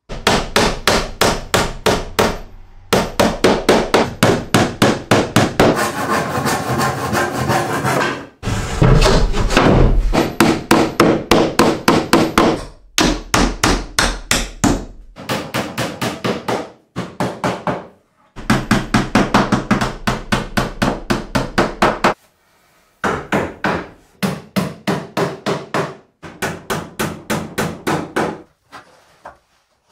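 Rapid hammer strikes driving nails into wooden boards, about four or five blows a second, in several runs broken by short pauses.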